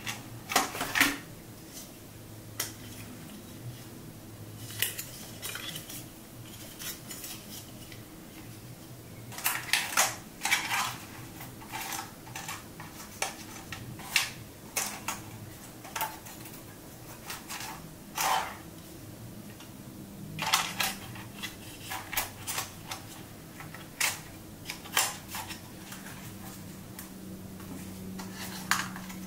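Plastic clicks, taps and rattles from handling a DJI Mini 3 Pro drone and fitting its propeller holder strap, coming irregularly, some in quick clusters, over a faint steady low hum.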